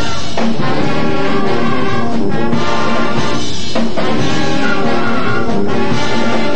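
High school band playing loudly, with brass prominent in full sustained chords and short breaks between phrases.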